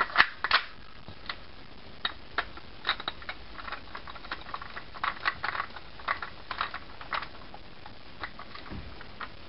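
Handling clicks from a KSC MK23 airsoft pistol: two sharp clicks at the start as the magazine is seated, then a scatter of lighter clicks and scrapes as the silencer is screwed onto the barrel.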